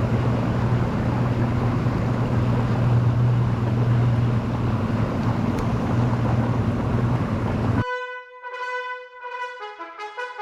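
Boat motor running under way, a steady low hum under a loud rush of wind and water, which cuts off abruptly near the end. Music with horn-like notes follows.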